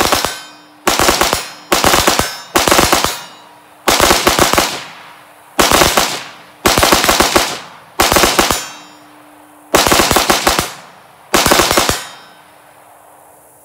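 AR-15 rifle with an 18-inch .223 Wylde barrel fired rapidly, in about ten quick strings of several shots each with short pauses between, the shooting stopping about twelve seconds in. The rounds are being fired to break in the new barrel.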